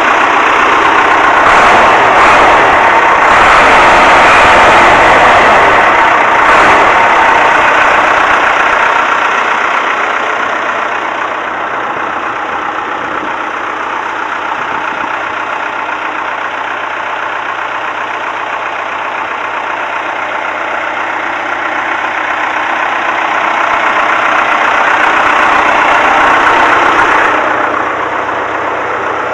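Allis-Chalmers 816 backhoe's four-cylinder Perkins diesel engine running, loudest for the first several seconds, easing off through the middle and swelling again shortly before the end.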